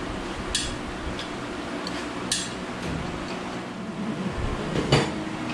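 Sharp metallic clinks, three of them, as an aluminum air cleaner assembly is handled and lifted off a race engine's carburetor, over a steady low hum.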